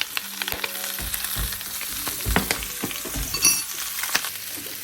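Chicken and coriander stems sizzling in hot oil in a pot while being stirred, with scattered knocks of the spoon against the pot and a short ringing metal clink about three and a half seconds in.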